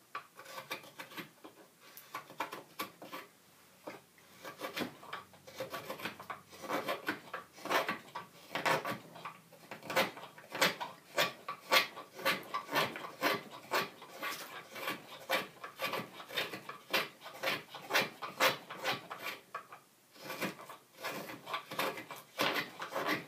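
A twca cam (hook-bladed crooked knife) slicing thin shavings from green cherry wood as it hollows a bowl: quick, repeated drawing cuts at about two strokes a second, with short pauses near the start and near the end.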